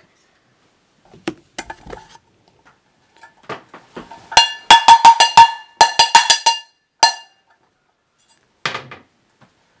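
A saucepan being struck with a metal utensil: a quick run of about a dozen ringing metallic clangs starting about four seconds in and lasting under three seconds. A few softer knocks come before it, and a dull thump near the end.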